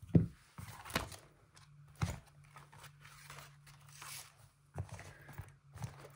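Hands handling and closing a leather Traveler's Notebook and its paper inserts: several soft knocks, the first the loudest, with light paper rustling in between.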